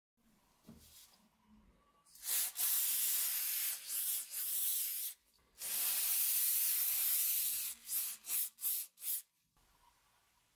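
Aerosol spray can with a thin straw nozzle spraying onto a steel meat cleaver blade: two long hissing sprays of about three and two seconds, then four short spurts.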